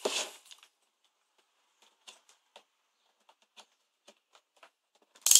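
A few faint, scattered light clicks and taps, then a loud sharp click near the end, as small test gear is handled.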